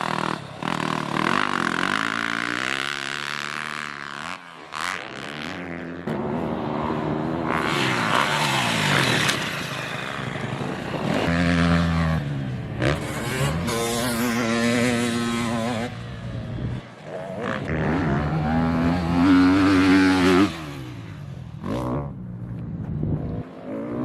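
Motocross dirt bike engine revving hard and easing off again and again, its pitch climbing and dropping as the rider accelerates and shifts around the track.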